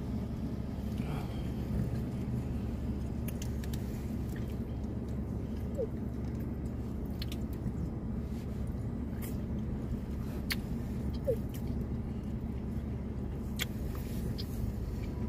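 Steady low hum of a car idling, heard from inside the cabin, with a few scattered soft clicks and mouth sounds of someone eating ice cream with a plastic spoon from a plastic cup.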